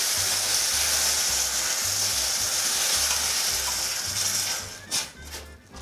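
Hot water being poured into dry-roasted semolina in a hot stainless steel kadai, sizzling loudly while a steel ladle stirs it. The hiss dies away about four and a half seconds in, followed by a short knock.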